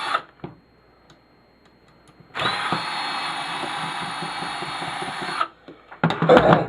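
Power drill running in short spells: it stops just after the start, then runs steadily again for about three seconds, backing screws out of a hospital-bed actuator's cast aluminium housing. Loud clattering of parts being handled near the end.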